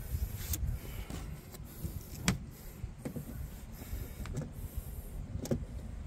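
A few short plastic clicks and taps as a trolling-motor power plug is handled and fitted into its deck receptacle, the sharpest a little over two seconds in, over a low steady rumble.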